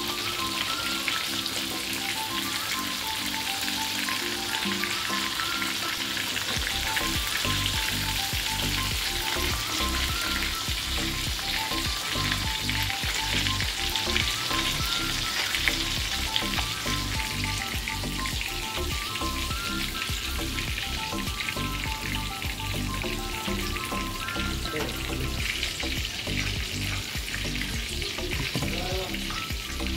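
Chicken cheese balls deep-frying in hot oil in a pan, a steady sizzling hiss.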